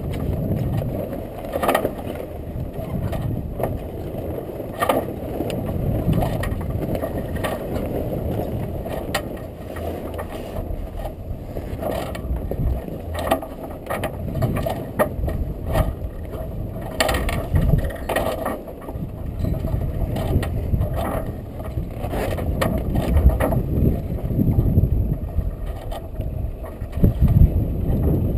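Wind and water rushing past a sailboat's deck as a steady low rumble, with irregular clicks, knocks and rattles of sailcloth and rigging as the headsail is hauled down out of the roller-furler foil.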